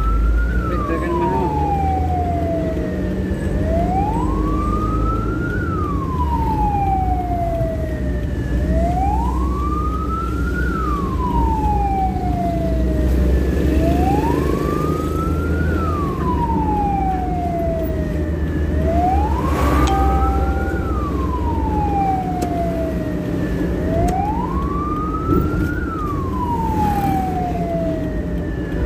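Ambulance wail siren sweeping up and down in pitch about once every five seconds, a quicker rise and a slower fall, over the steady rumble of the vehicle's engine and tyres, heard from inside the moving ambulance.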